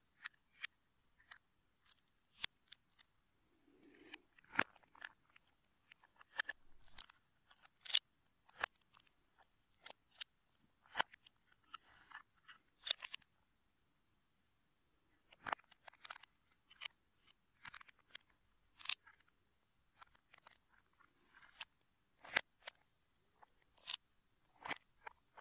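LEGO bricks being handled and pressed together: irregular sharp plastic clicks and rattles, with a pause of about two seconds a little past halfway.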